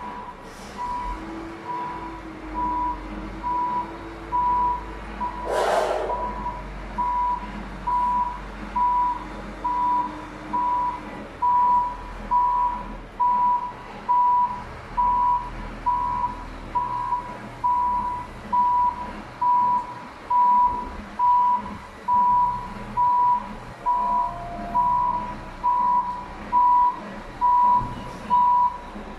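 Vehicle or machine backup alarm beeping steadily at one pitch, about once a second, over a low engine rumble. A brief loud hiss, like a burst of released air, comes about six seconds in.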